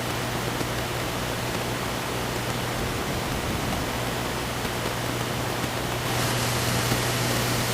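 Steady static hiss with a low hum underneath: the noise of a lost signal. The hiss gets a little louder and brighter about six seconds in.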